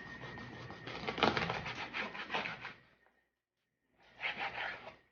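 Knife cutting through a whole pompano, with a crunching, crackling run of many small clicks as the blade goes through the fish and its backbone, then a short second crunch about four seconds in.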